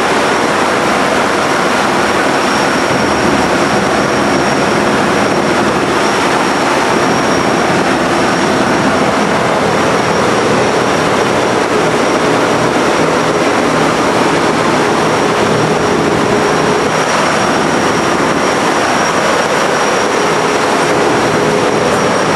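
B-17 bomber's four Wright R-1820 Cyclone radial engines running steadily, heard from inside the fuselage as a loud, unbroken drone with a thin high whine over it.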